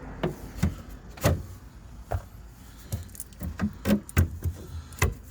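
Irregular clicks and knocks, about a dozen spread unevenly, from hands handling and prying the plastic trim around the third brake light in an Audi A6 estate's tailgate.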